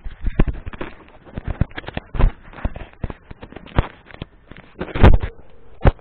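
Handling noise from a gloved hand fumbling with the camera: irregular knocks, bumps and rubbing right on the microphone. The loudest bumps come about five seconds in, with a sharp knock just before the end.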